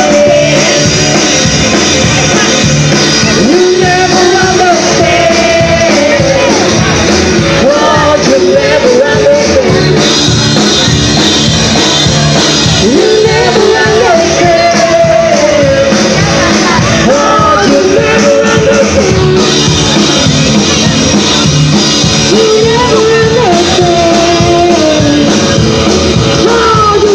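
Live band playing loudly: guitar and a full band under sung vocals.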